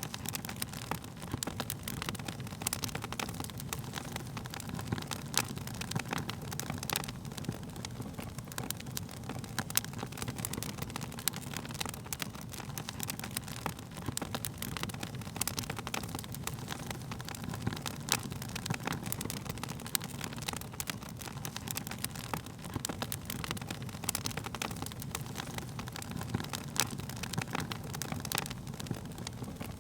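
Wood fire crackling: many irregular sharp pops and snaps of burning wood over a low, steady rumble of the flames.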